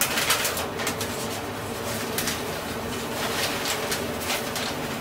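Paper bag rustling and crinkling in irregular bursts as powder is shaken out of it into a V-blender shell, over a steady low hum.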